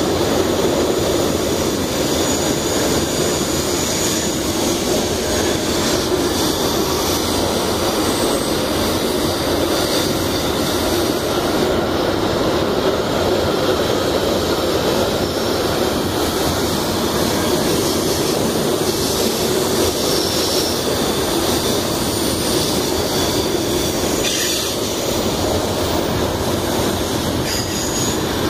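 Long string of loaded iron-ore freight wagons rolling past, a steady rumble of steel wheels on rail, with a brief high squeal from the wheels now and then.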